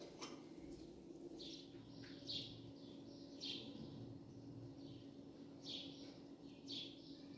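Faint bird chirping: short, high, slightly falling calls about once a second, over a faint steady low hum.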